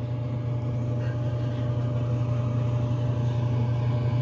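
Steady low hum of a kitchen appliance running by the stove, with a faint steady whine above it.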